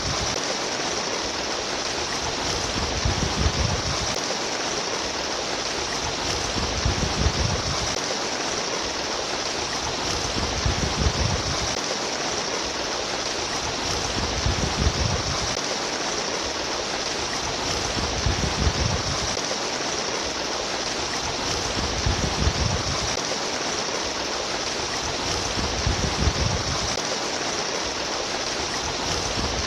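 Running water splashing and trickling steadily, like a small stream, with a low swell in the flow about every four seconds.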